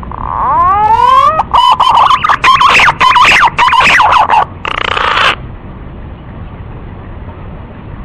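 Male pink-necked green pigeon giving one long call of about five seconds: it opens with rising whistles, breaks into a run of choppy warbling notes, and ends in a short harsh rasp.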